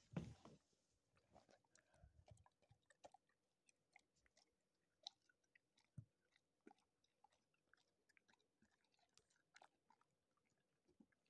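Golden retriever chewing pieces of strawberry: faint, irregular wet smacks and clicks of its mouth. A brief louder rustle comes right at the start.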